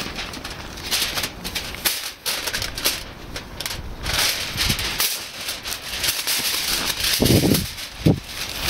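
Sheet of aluminium foil crinkling and rustling as it is handled and smoothed flat, with a couple of low bumps near the end.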